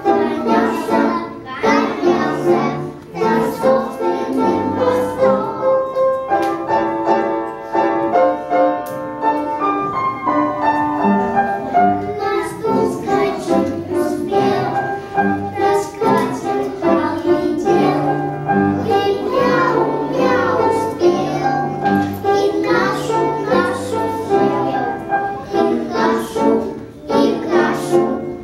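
A group of young boys singing a Russian children's song together over music with a steady bass line.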